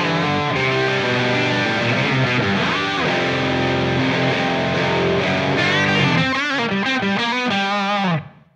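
Crunchy, classic-rock distorted electric guitar from a Line 6 JTV-59 Variax's bridge humbucker, played through Helix Native's Brit P75 Bright (Plexi-style) amp model. About six seconds in it lands on a held chord that wavers in pitch and dies away near the end.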